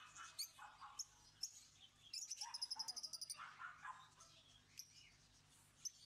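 Caged lovebirds chirping faintly in quick series of high chirps, most about two to three and a half seconds in.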